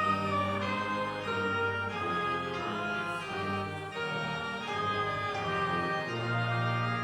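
Organ playing a hymn in slow, sustained chords that change every second or so.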